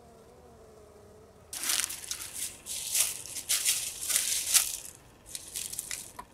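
Faint buzzing of honeybees at the hive entrance, then footsteps crunching through dry leaves and pine straw at about two steps a second, with a few lighter crunches near the end.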